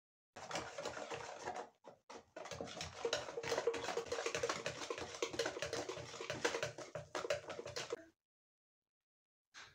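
Wire hand whisk beating thin, liquid cake batter in a plastic dish: a fast run of clicking, sloshing strokes as the whisk taps the sides. There is a brief break about two seconds in, and the whisking stops abruptly about eight seconds in.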